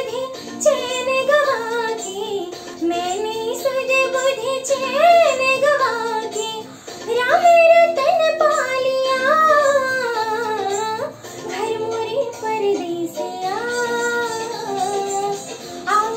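A young girl singing a Hindi film song solo in a high voice, with ornamented, sliding melodic lines and short breaths between phrases, over a quieter accompaniment of steady held notes.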